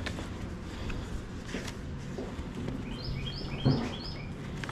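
A songbird sings a short song of four or five quick repeated notes about three seconds in, with light handling of paper record sleeves and magazines. A brief low bump near the end is the loudest sound.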